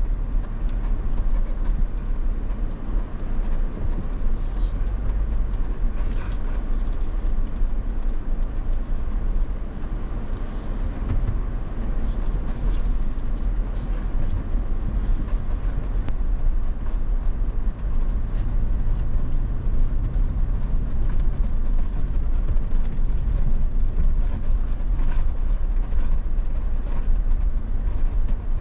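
Off-road vehicle driving a rough dirt trail: a steady low rumble with a few brief rattles and crunches from the road surface.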